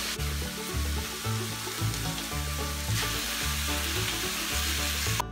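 Diced beef and chopped green peppers sizzling steadily in hot oil in a frying pan, being sautéed after the meat's juices have cooked off. A background music bass line runs underneath.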